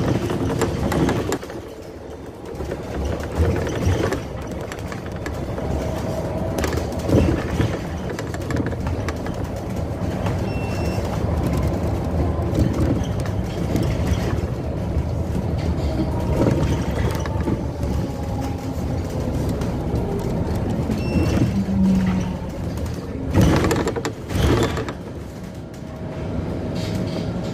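Engine and road noise inside a moving single-deck bus, with a short high beep sounding twice.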